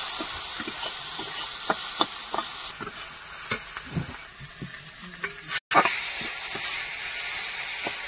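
Prawns sizzling in hot oil in a metal kadai, with a metal spatula scraping and clicking against the pan as they are stirred. The sizzle dips for a few seconds in the middle, and the sound cuts out for an instant a little past halfway.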